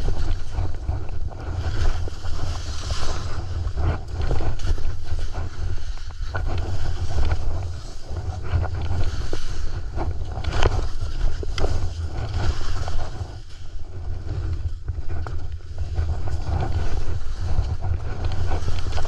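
Wind buffeting a GoPro microphone during a fast ski descent, under the hiss and scrape of Black Crows skis running over firm snow, rising and falling with the turns.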